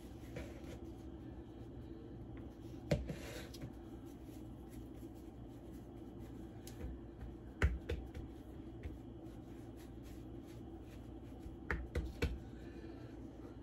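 Hands pressing and patting pie dough on a floured wooden cutting board, with soft rustling and a few sharp taps, over a steady low hum.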